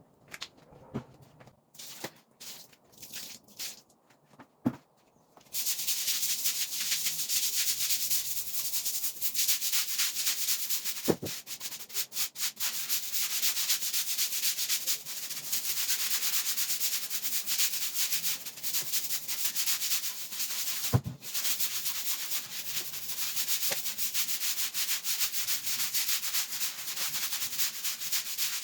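Steady, rapid scrubbing: something rubbed hard back and forth against a surface in a fast continuous rasp. It starts about five seconds in after a few scattered clicks, with a sharp knock twice during the scrubbing.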